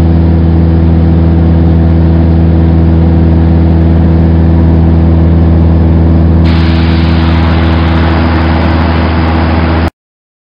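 Steady drone of a single-engine piston propeller plane's engine at a constant setting. The hiss over it grows brighter about six and a half seconds in, and the sound cuts off abruptly near the end.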